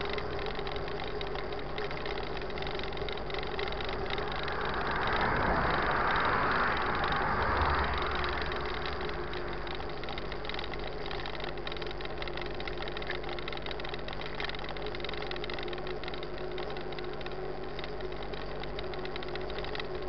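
Steady rolling noise of a mountain bike riding on asphalt, heard from a camera mounted on the bike, with a low steady hum underneath. A louder rushing swell rises and falls between about five and eight seconds in.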